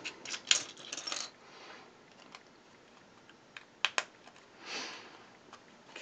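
Small plastic LEGO bricks clicking as they are handled and pressed into place: a quick cluster of clicks in the first second or so, then two sharp clicks about four seconds in, followed by a brief soft hiss.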